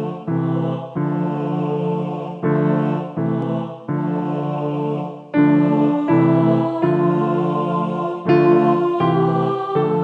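Keyboard instrument with a piano-like sound playing a slow minor-key tune with chords, each note struck and then fading, about one new note or chord every second.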